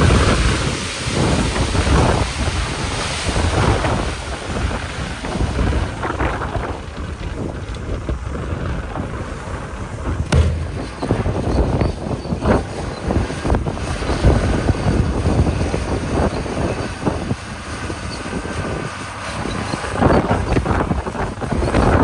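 Gravel pouring and sliding from a dump truck's raised bed, then a Komatsu crawler bulldozer's diesel engine running as its blade pushes gravel, with a few sharp knocks. Wind buffets the microphone throughout.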